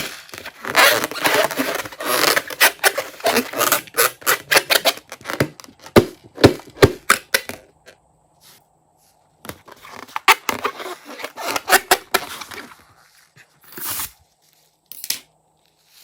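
Slime being squished and stretched by hand: a dense run of sticky clicks and crackles. It pauses about eight seconds in, picks up again, then gives two single pops near the end.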